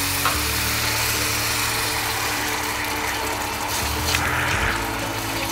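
Sugar and water sizzling and bubbling in hot ghee in a pan as the syrup starts, stirred with a silicone spatula, with a brief scrape of the spatula about four seconds in. A steady low hum runs underneath.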